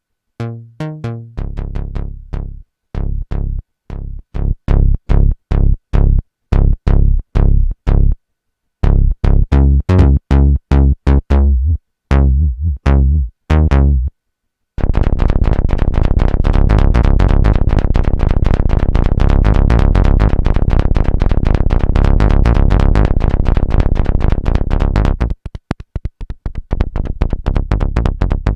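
Roland Juno-106 analog polyphonic synthesizer playing a preset patch: short, bass-heavy staccato notes with gaps between them, then from about halfway a dense, fast-pulsing continuous sound that thins out near the end.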